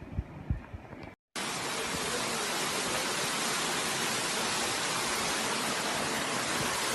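Steady, even gushing hiss of water rushing from a burst water main. It starts abruptly after a brief cut about a second in; before the cut there are low rumbling knocks.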